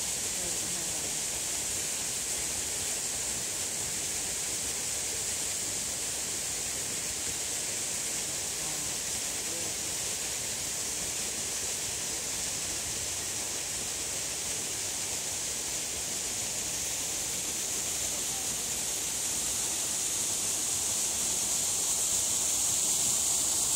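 A steady outdoor hiss, strongest in the high frequencies and without distinct events, growing slightly louder near the end.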